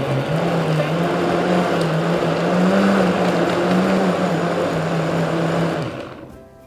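Countertop blender motor running at full speed, puréeing a watery mix of chillies, garlic and coriander into Thai seafood dipping sauce. Its steady hum rises slightly in pitch midway, then the motor is switched off and winds down about six seconds in.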